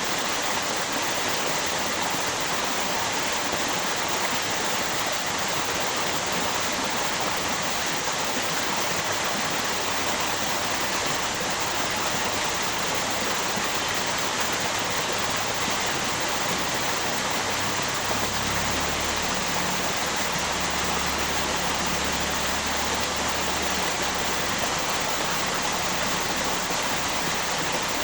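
River water flowing and falling over a waterfall in a steady, even rush. A low rumble joins in for several seconds past the middle.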